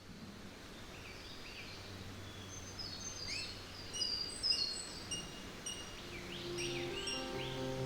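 Several birds chirping and calling over a faint outdoor hiss, fading in from quiet, with short rising and falling whistles. Low sustained music tones come in near the end.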